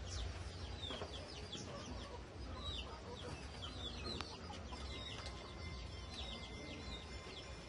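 Birds chirping: many short, high, falling chirps, several a second, over a steady low rumble.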